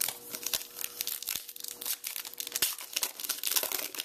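Foil wrapper of a 2011 Topps Finest baseball card pack crinkling and tearing as it is ripped open by hand, a dense run of crackles throughout.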